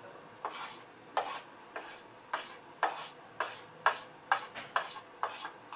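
A spoon scraping and scooping, about ten short strokes at roughly two a second, as gram flour (besan) is spooned into a bowl of mashed potato.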